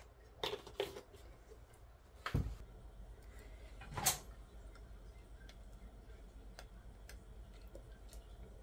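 Scattered kitchen handling noises: a few light clicks and knocks of glassware and utensils, with a heavier knock a little past two seconds and a metal spoon clinking against a glass bowl about four seconds in. Between them only faint small ticks.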